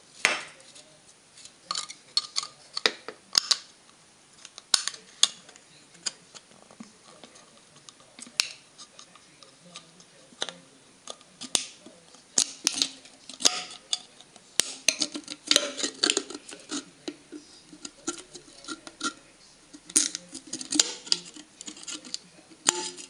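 Utility knife blade scoring and cutting the thin aluminium bottom of a soda can: irregular scrapes and sharp clicks, some in quick clusters.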